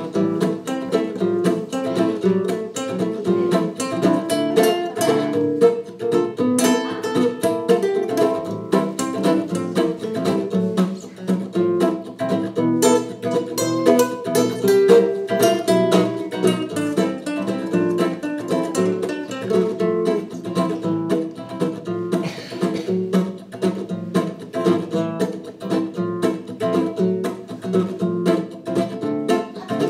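Plucked acoustic guitar music, a quick run of picked notes playing without a break.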